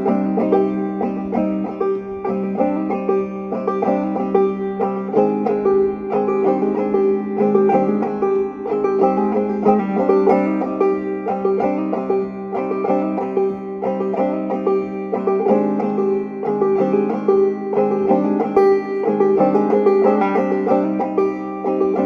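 Banjo played clawhammer style: a steady, rhythmic run of plucked notes over a ringing drone string, in a dark folk tune.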